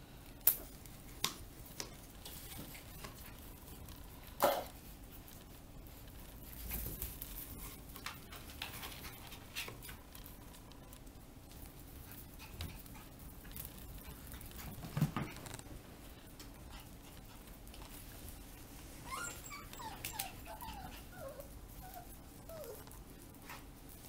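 Eight-week-old Mittelspitz (German Spitz) puppies playing, with scattered clicks and knocks from paws and claws on a tile floor. Near the end comes a string of short whimpers, each falling in pitch.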